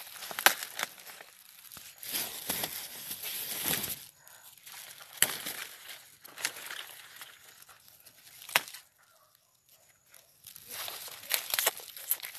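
Dry rustling and crackling of corn leaves and stalks being brushed and handled, coming in irregular bursts with a few sharp cracks among them.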